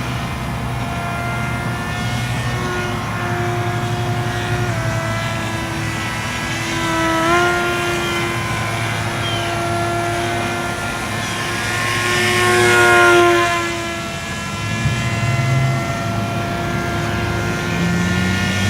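Radio-control foam-board model airplane's motor and propeller running in flight, its pitch rising and falling with the throttle. It gets louder as it passes by about twelve seconds in, the pitch dropping as it goes away.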